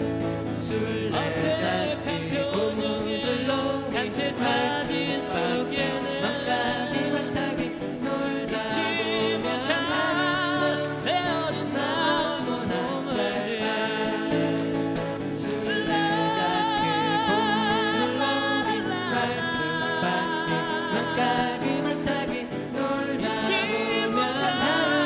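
Live acoustic folk-pop: strummed acoustic guitars with several male voices singing together.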